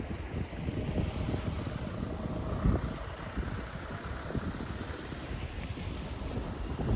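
Storm wind buffeting the microphone in gusts, with the hiss and hum of a vehicle passing on the street during the first few seconds.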